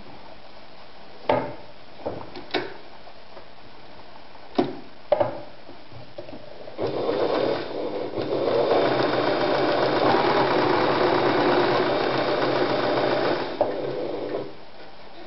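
Singer Rumina 3000 sewing machine stitching fabric. A few sharp clicks and knocks come as the fabric is set under the needle. Then, about seven seconds in, the machine starts running; it picks up speed, runs steadily for several seconds and slows to a stop near the end.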